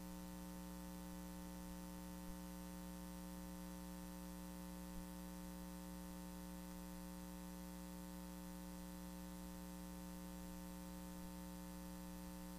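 Steady electrical hum over a layer of hiss, with no music or voice: mains hum in the audio line. Two faint ticks come at about two and five seconds in.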